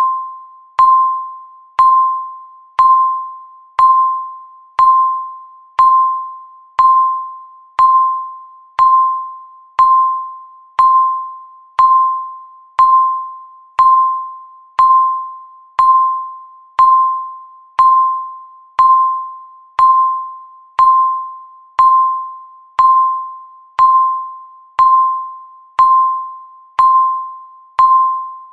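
Countdown timer beeping once a second: a single high electronic tone that starts sharply and fades away before the next beep, about 29 beeps in an even rhythm.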